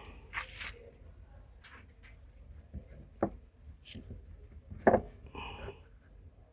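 Parts being handled: scattered light clicks and two sharper knocks, about three and five seconds in, the second the loudest, over a low steady background hum.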